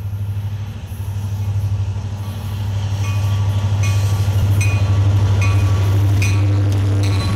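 Diesel freight locomotives running past with a steady low engine drone that grows louder as they approach, with a string of sharp metallic clicks from about three seconds in.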